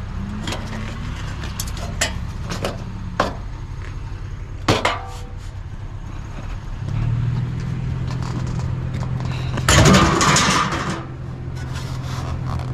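Knocks and clanks of curbside scrap being handled, one with a short metallic ring, then a loud rattling clatter near the end. A steady low engine hum joins about halfway through.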